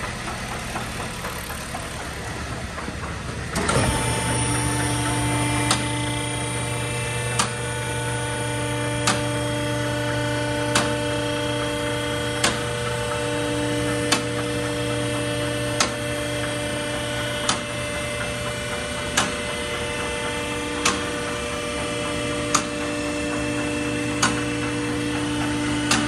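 Dodge Caliber's engine running with a steady hum. About four seconds in it gets a little louder with a steady whine of several tones, and a sharp click repeats about every second and a half to two seconds. This is the strange noise the owner places in the engine.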